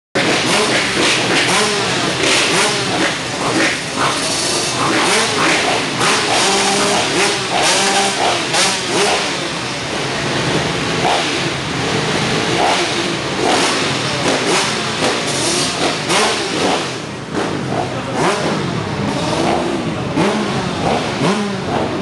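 Motocross motorcycle engines running and being revved, their pitch rising and falling again and again.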